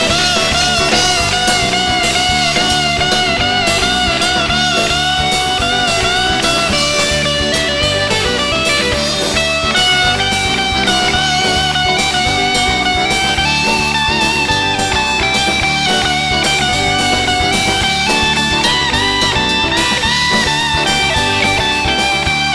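Instrumental rock band music: a lead electric guitar plays a melody with bent, wavering notes over drums with steady cymbal beats, bass and rhythm guitar.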